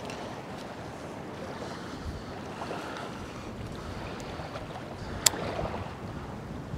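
Steady wind on the microphone and small waves lapping at the shore, with one sharp click about five seconds in as a fishing rod is cast out.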